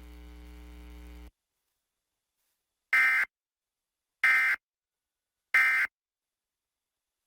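Emergency Alert System end-of-message signal: three identical short buzzy bursts of SAME digital data, about 1.3 seconds apart, closing the statewide monthly test. Before them, a low hum cuts off about a second in.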